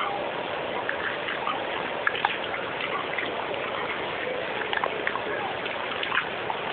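A dog chewing grapes, with scattered short wet clicks and smacks over a steady rushing background noise.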